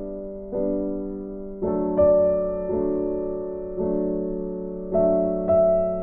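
Background music: slow piano chords, a new one struck about once a second and each fading away.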